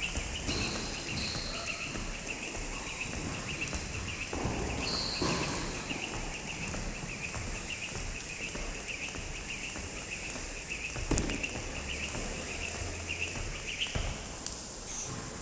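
Jump rope spinning through double-unders, a fast, even ticking about four times a second, with the jumper's landings under it. It stops about fourteen seconds in.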